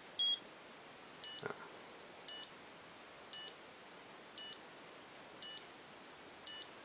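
CMIzapper Medusa-3 ROM programmer beeping: seven short high beeps about once a second, the first a single tone and the rest a two-tone beep. It is sensing which way round the clip sits on the ROM chip before it starts reading.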